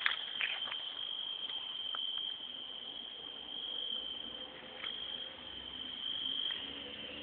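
Steady high-pitched chirring of night insects, with a few faint clicks in the first second.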